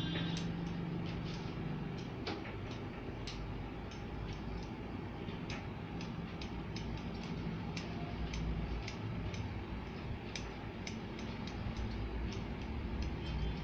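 Barber's scissors snipping beard and moustache hair: sharp, irregular metal clicks, one to three a second, over a low steady hum.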